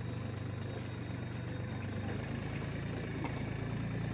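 A motorcycle engine idling steadily, its low, even firing unchanged throughout.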